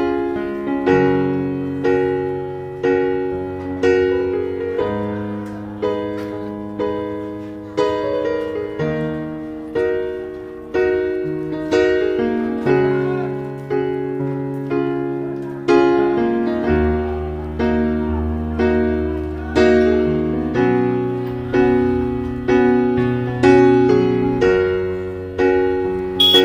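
Background piano music: notes and chords struck about once a second, each ringing and fading before the next.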